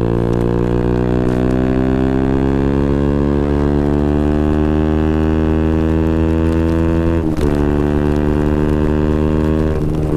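KTM Duke 125's single-cylinder four-stroke engine through a Scorpion exhaust with the dB killer removed, running under way with the revs slowly climbing. Its note breaks off briefly about seven seconds in and again near the end, as at a gear change.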